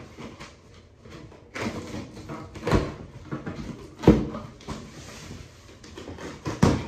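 Cardboard shipping box being handled and opened: rustling, then three sharp knocks and thumps, the loudest about four seconds in.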